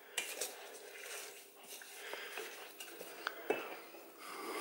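Wooden spatula stirring chopped tomatoes in a stainless steel pot, with scattered knocks and scrapes of the spatula against the pot among the wet sound of the fruit.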